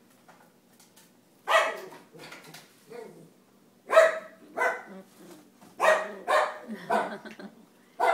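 A dog barking from another room: a run of short, sharp, high barks in uneven groups, starting about a second and a half in.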